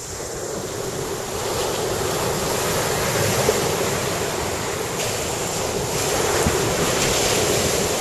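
Surf washing onto a beach with wind buffeting the microphone: a steady rushing noise that grows a little louder over the first couple of seconds.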